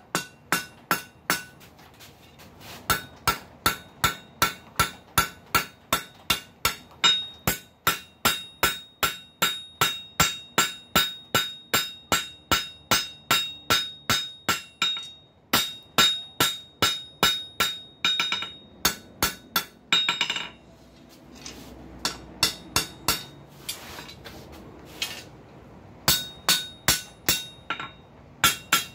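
Hand hammer striking red-hot flat steel bar on an anvil in a steady rhythm of about two to three blows a second, each blow leaving a bright metallic ring from the anvil. There are a couple of short pauses, then a spell of lighter, scattered taps about two-thirds of the way through, before the steady blows resume near the end.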